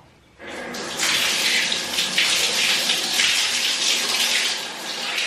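Water running steadily from a tap, rinsing a deep-conditioning treatment out of hair; the flow starts about half a second in.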